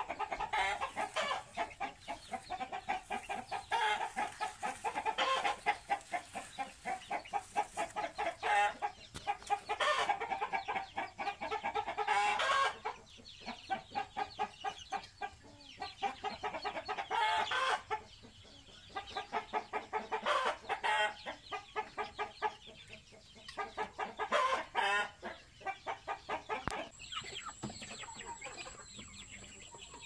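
Birds calling in rapid clucking runs, continuous for about the first twelve seconds and then in shorter bursts with pauses between. A faint steady high-pitched whine comes in near the end.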